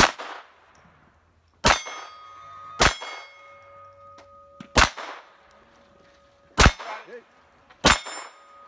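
Six pistol shots from a .22 rimfire Smith & Wesson M&P22 Compact, spaced one to two seconds apart, each followed by the clang of a steel plate being hit. Some plates keep ringing with a steady tone for a few seconds.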